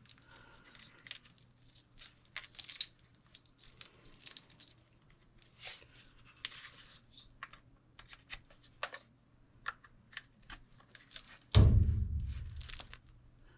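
Small clicks and rustling of hands working on furnace parts while the hot surface igniter is disconnected and its ohms are checked, over a faint steady hum. A loud low thump near the end.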